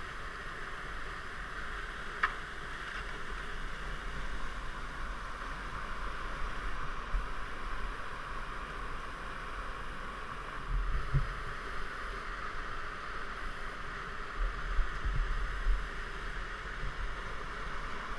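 Whitewater rapid rushing steadily, with a sharp click about two seconds in and a few dull low thumps later on.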